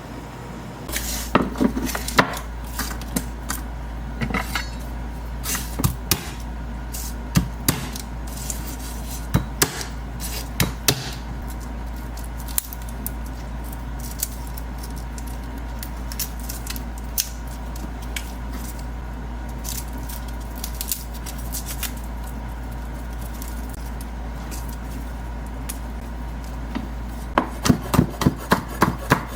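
Kitchen knife knocking on a wooden cutting board now and then over a steady low hum. Near the end it turns into quick, even chopping, about three strokes a second.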